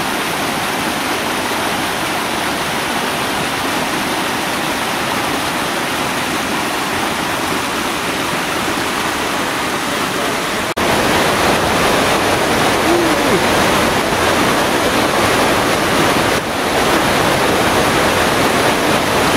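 Mountain creek rushing and splashing over rocks in a steady cascade. About eleven seconds in it breaks off briefly and comes back louder, a closer rush of whitewater.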